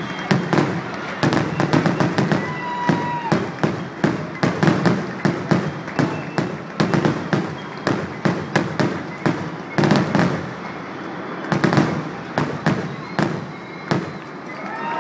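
Fireworks going off in a rapid, irregular string of sharp bangs and crackling reports, several a second, with a brief thin whistle about two to three seconds in. The reports thin out slightly near the end.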